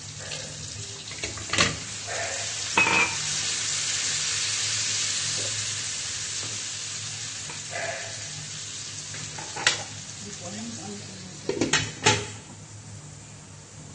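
Cubed carrot or squash and broccoli sizzling as they are tipped into a hot pan of frying shrimp on a gas burner, the sizzle swelling a couple of seconds in and then fading. A spatula and the pan's glass lid clank against the pan several times, with a cluster of knocks near the end as the lid goes back on.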